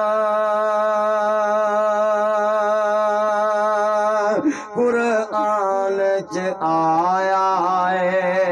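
A man singing a naat into a microphone, holding one long note with a wavering vibrato for about four seconds, then breaking into shorter ornamented sung phrases.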